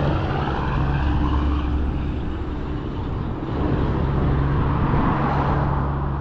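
Road traffic passing: a steady low engine drone with tyre noise, swelling about four seconds in as a vehicle goes by.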